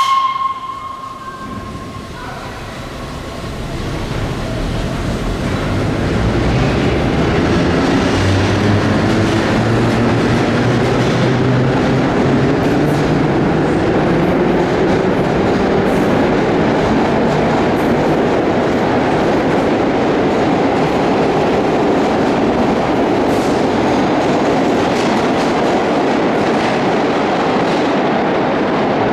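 Vintage R1-9 subway train giving a short horn blast, then accelerating: its traction motors whine, rising slowly in pitch, as the running noise builds. It then settles into a steady rumble with wheels clacking over the rails.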